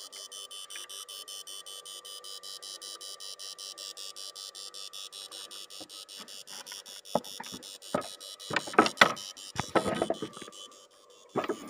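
Yangdong Y800 electric fish shocker buzzing in a rapid, even pulse of several beats a second over a steady high whine. From about seven seconds in, sharp knocks and clatter on the wooden boat are louder than the buzz.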